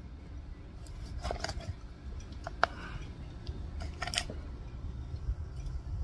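Meat cleaver cutting up a whole raw duck on a wooden board: a few short, sharp knocks and clicks of the blade, the loudest about two and a half seconds in.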